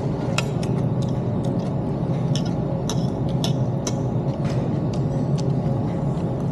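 Irregular light clicks of cutlery against plates, about two a second, over a steady low background din.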